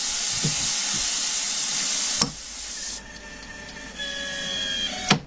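Steady hiss of a coolant mist spray on a metal lathe. It cuts off abruptly with a click about two seconds in, leaving a quieter lathe sound with faint steady whines, and there is another sharp click near the end.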